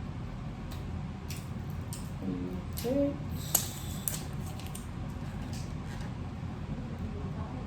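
Scattered small clicks and taps of repair tools on a phone's parts, the sharpest about three and a half seconds in, over a steady low hum. A brief murmured voice comes just before it.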